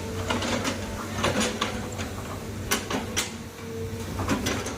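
Hydraulic excavator's diesel engine running steadily, with a string of sharp metallic clanks and knocks from the machine working.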